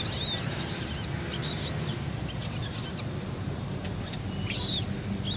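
Baby macaque squeaking: about five short, high-pitched, wavering calls a second or so apart.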